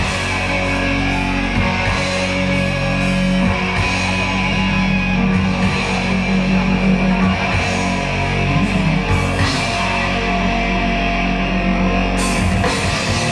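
Live hard rock band playing loud through guitar amplifiers: distorted electric guitars, bass and drums driving on together.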